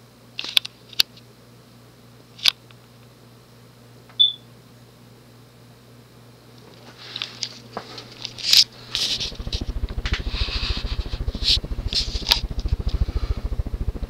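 Vintage Hunter Original oil-bath ceiling fan running on high, with a steady low hum and a few sharp clicks. From about nine seconds in, the draft from its blades buffets the microphone in rapid, even pulses.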